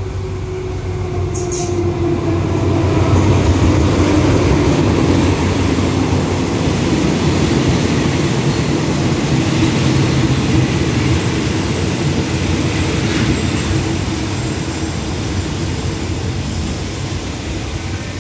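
Alsthom diesel-electric locomotive pulling a train of coaches into a station: a low engine drone with held tones over the rumble of rolling wheels, growing loudest as the locomotive passes a few seconds in, then slowly easing off as the coaches roll by and the train slows to stop.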